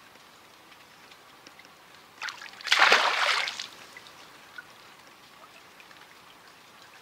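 Piraputanga fish leaping at a banana peel dangled over the river and splashing back into the water, one loud splash about three seconds in, over a faint steady sound of running water.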